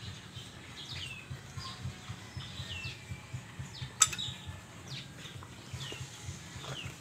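Small birds chirping: short falling calls, about one a second, over a steady low hum, with a single sharp click about four seconds in.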